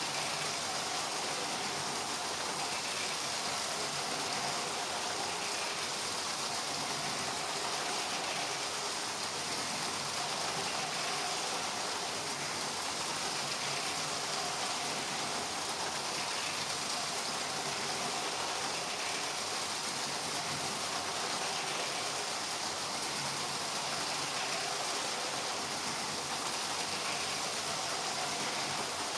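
Two LEGO trains' small electric motors and wheels running on plastic track: a steady, even whirring hiss without distinct clicks.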